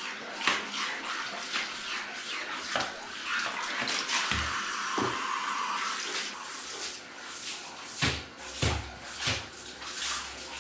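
Handheld shower head spraying water over a cat's wet coat as it is rinsed, a steady hiss. From about six seconds in the spray sounds brighter and is broken by several sharp knocks and splashes.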